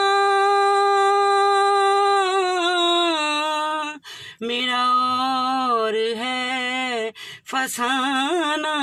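A woman singing an Urdu ghazal unaccompanied, drawing out long sustained notes: a steady high note first, then two lower phrases with quavering ornaments, broken by two short breaths.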